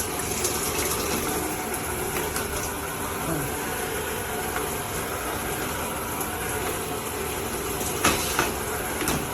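Water spraying steadily from a rainfall shower head, with a couple of short knocks near the end.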